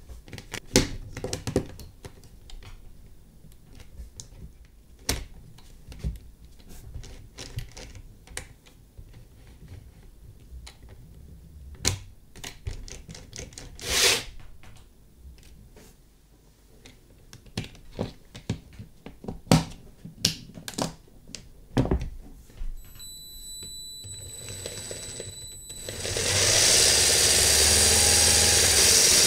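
Plastic Lego Technic parts clicking and knocking as a bearing test rig is handled and adjusted. A little before the end a Lego electric motor starts and runs steadily, louder than the handling, driving the rig's axle and gears.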